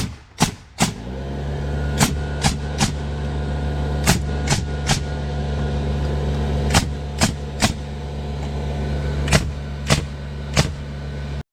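Nails being driven into the lumber of a timber beam in quick sets of three sharp strikes, about every two seconds. A motor starts about a second in and runs steadily underneath, and everything cuts off suddenly just before the end.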